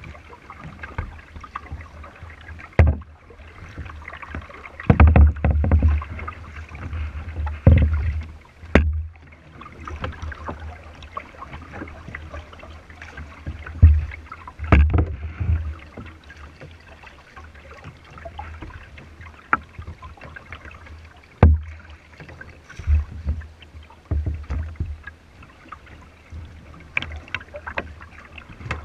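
Paddling a plastic kayak: water splashing and slapping against the hull in irregular low thumps as the paddle strokes, with a few sharp knocks on the hull.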